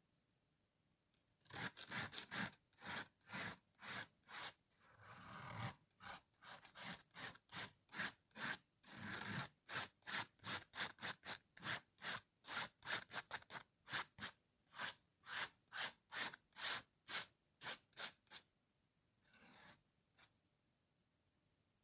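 Dried salt crystals being scraped off a painting's surface with a palette knife, in quick repeated scraping strokes about two a second, with a couple of longer drawn-out scrapes among them; the strokes stop about a second before the end.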